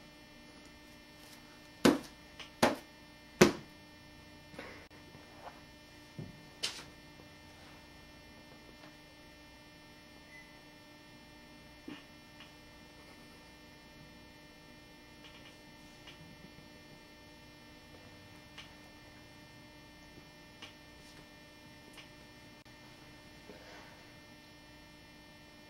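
Faint steady electrical hum with three sharp taps about two to three and a half seconds in, followed by scattered faint ticks.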